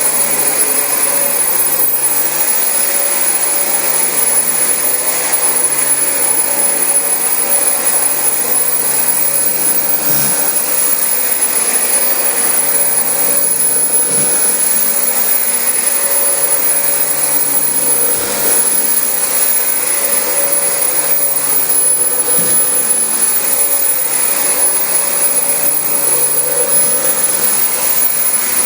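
Dyson DC25 upright vacuum cleaner running steadily while vacuuming carpet, its motor giving a constant high-pitched whine over a loud rushing airflow.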